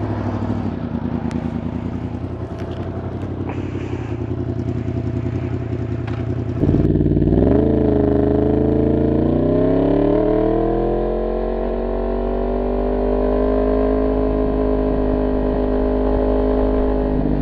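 Yamaha MT-10's crossplane inline-four engine running at low revs. About six and a half seconds in it gets louder and the revs climb steadily for several seconds as the bike accelerates, then hold at a higher, steady pitch.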